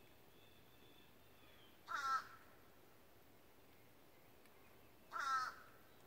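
Two harsh, caw-like calls from a corvid, each under half a second, about three seconds apart.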